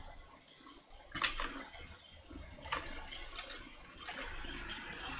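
Computer mouse clicking, a few scattered short clicks at irregular intervals over faint background hiss.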